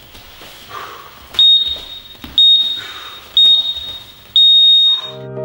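Digital interval timer beeping a countdown at the end of a round: three short, high beeps a second apart, then a longer final beep. Music starts just after the last beep.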